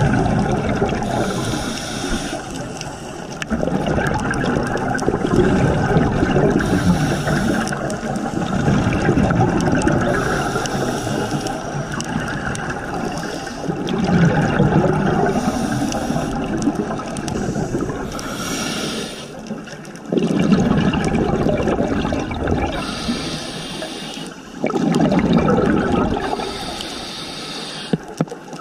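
Scuba diver breathing through a regulator underwater: a hiss on each inhale and a gush of exhaust bubbles on each exhale, repeating about every three to four seconds.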